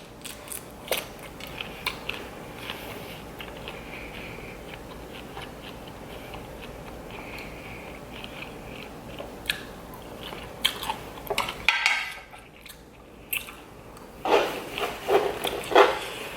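Close-miked chewing and crunching of food, with scattered small clicks and a louder run of crunches near the end.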